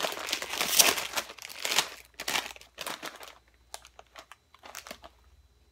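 Doritos chip bag being pulled open and crinkled: a dense burst of crackling for about the first two seconds, then scattered lighter crinkles as the bag is handled, dying away near the end.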